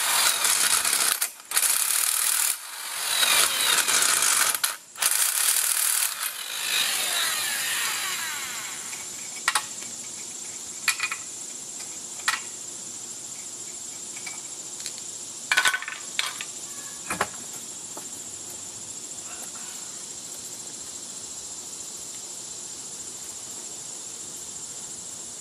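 Corded electric impact wrench running on lug nuts in several bursts, then spinning down with a falling whine. A few light clanks follow as the tool and the nuts are set down.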